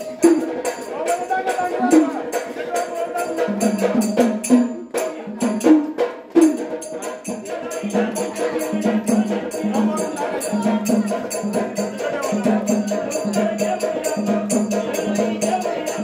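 Marathi gondhal devotional music: a fast, steady beat of small hand cymbals and drum, with a voice singing over it.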